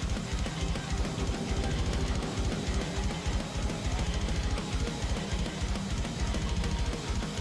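Background music: a rock track with a drum kit keeping a steady beat and guitar.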